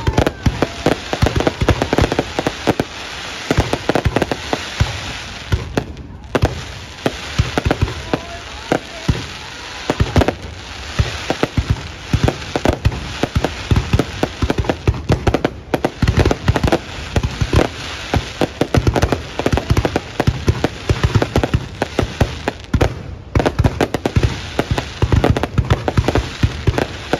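Aerial fireworks display going off without a break: a rapid, dense run of bangs and booms over a steady crackle.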